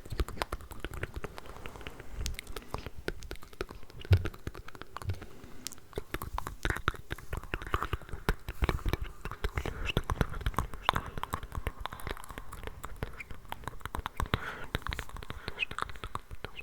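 Layered ASMR mouth sounds: rapid, dense wet clicks and smacks of lips and tongue close to the microphone, with layered unintelligible whispering mixed in, more of it from about six seconds in. One louder pop comes about four seconds in.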